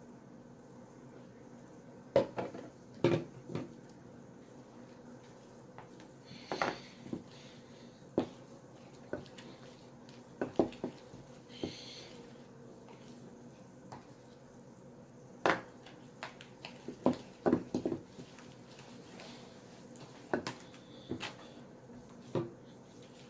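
Wooden spoon knocking and scraping against a mixing bowl while stirring slime: irregular sharp knocks, some in quick clusters, with a couple of brief scrapes.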